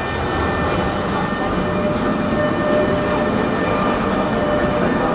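Electric tram running: a steady rumble of wheels on rail, with a motor whine that rises in pitch about halfway through.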